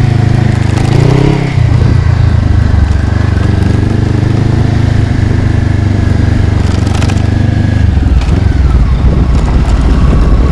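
Honda CB500X's parallel-twin engine running as the motorcycle rides a dirt track, with tyres crunching over the dirt. The engine note changes about a second in and again near eight seconds.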